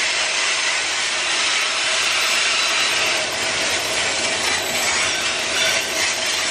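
Freight train grain hopper cars rolling past, a steady grinding rush of steel wheels on the rails.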